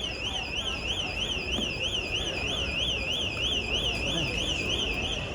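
An electronic alarm, a high warbling tone that sweeps up and down about four times a second, starting suddenly and cutting off near the end, over a steady background murmur.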